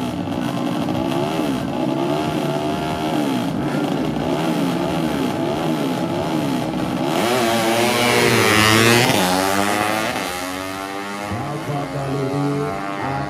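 Tuned 130cc underbone drag-race motorcycles revving up and down over and over at the start, then launching hard. The sound is loudest about eight to nine seconds in, and the engine note then drops as the bikes pass and pull away down the strip.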